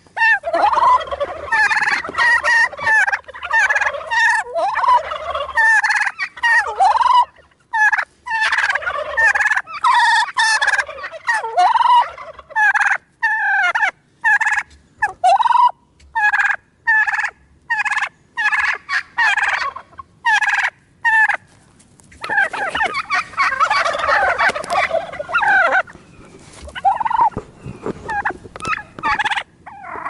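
Turkey toms gobbling over and over: short rattling gobbles with brief gaps between them, turning into a denser stretch of several overlapping gobbles about three-quarters of the way through.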